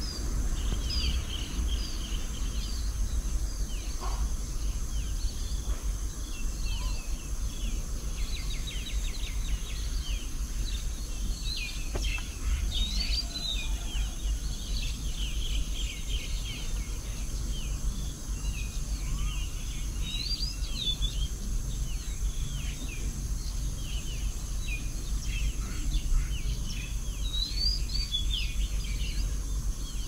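Many small birds chirping continuously, a dense stream of short, high calls several times a second, over a steady low rumble.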